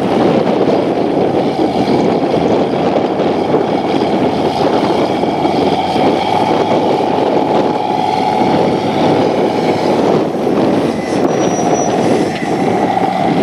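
Off-road hill-climb buggy's engine running hard under load as it climbs a steep dirt mound, the revs swelling about six seconds in and again near the end.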